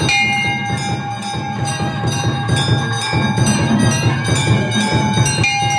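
Temple bells ringing fast and continuously during the lamp offering to the deity, a rapid clanging of several strikes a second over a steady ringing tone.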